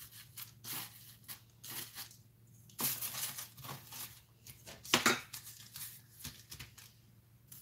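Scattered short rustles and scrapes of hands and a ruler moving over a sheet of rolled-out cookie dough on baking paper, the loudest about three and five seconds in.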